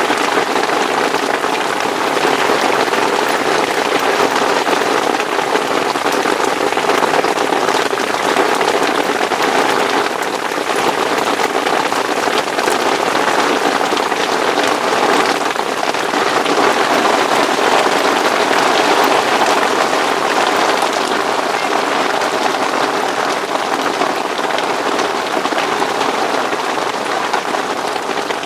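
Heavy rain beating steadily on the fabric canopy of a fishing bivvy, a dense, even patter of drops.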